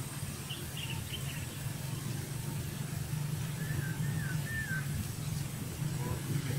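Open-air ambience with a steady low hum like a distant engine running. A few faint chirps come about half a second in, and three short chirps follow about three and a half seconds in.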